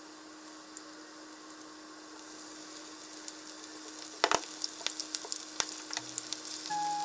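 Batter-dipped pieces of Japanese long green onion (naga-negi) deep-frying in hot oil in a frying pan: a steady sizzle that grows fuller about two seconds in as more pieces go in, with crackling and one sharp click about four seconds in.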